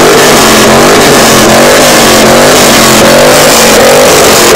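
Full-size SUV's engine revved over and over through its exhaust, the pitch rising and falling in repeated blips; very loud.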